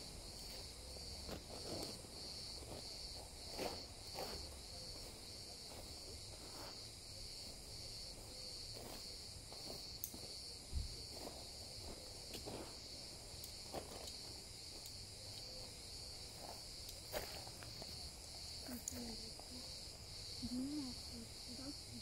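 Insects chirping in a steady, pulsing chorus, with scattered rustles and light clicks of tent fabric and poles being handled.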